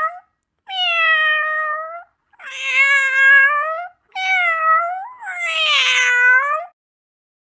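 Domestic cat meowing: a series of long, drawn-out meows, each lasting a second or more, with short pauses between them.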